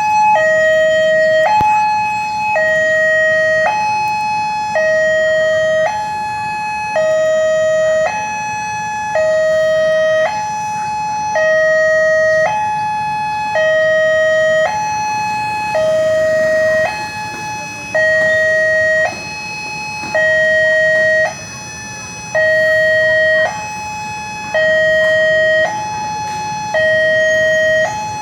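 Railway level-crossing warning alarm: an electronic two-tone signal alternating steadily between a higher and a lower tone, each held about a second. It warns that a train is approaching the crossing.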